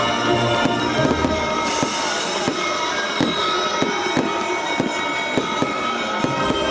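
Fireworks display: many irregular sharp bangs and pops, several a second, with a short hiss about two seconds in, over music with held notes playing alongside.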